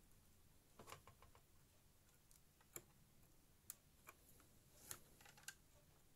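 Faint, scattered small clicks and taps, about half a dozen at irregular intervals, from an M.2 NVMe SSD being handled and seated into its M.2 socket.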